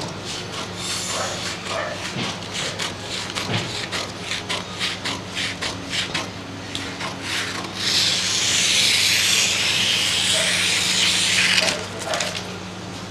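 Large tailor's shears cutting through kraft pattern paper in a quick series of crisp snips. About eight seconds in comes a louder, steady rustling hiss of the paper that lasts about four seconds and stops abruptly.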